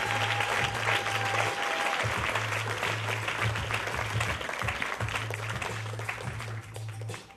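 Audience applause fading away, over music with a deep held bass note that repeats about every two and a half seconds.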